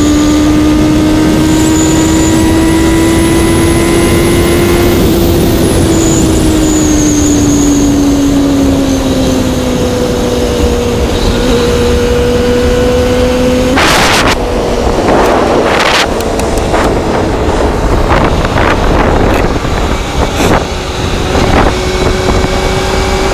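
Kawasaki ZXR250 inline-four engine running at high revs while riding at speed, with heavy wind roar on the microphone. The engine note climbs slightly for the first few seconds, then eases down and holds steady. Past the middle, sharp crackles and knocks of wind buffeting and handling break in.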